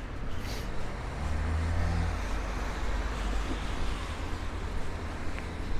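Road traffic on a city street: a car's engine and tyres swelling as it passes about a second in, over steady traffic noise. Wind buffets the microphone with a low rumble.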